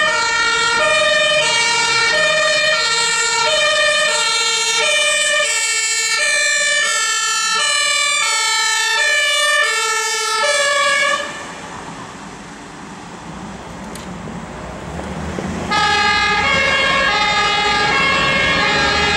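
German two-tone fire service siren (Martinshorn) on a fire brigade vehicle answering a call, alternating steadily between its two pitches. About eleven seconds in it cuts off to quieter street traffic noise with a single sharp click, and a two-tone siren starts again in the last few seconds.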